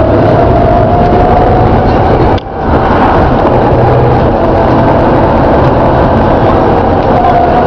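Alexander ALX400-bodied Volvo B7TL double-decker bus running loud, with a faint groaning tone that slowly rises and falls in pitch over the engine and road noise; the groan is the bad noise being shown as a fault. The sound drops out briefly about two and a half seconds in.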